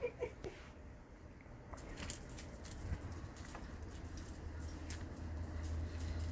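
Cats pouncing on and clawing at a feathered toy bird: scattered light taps and scuffs. A low steady hum comes in about three seconds in.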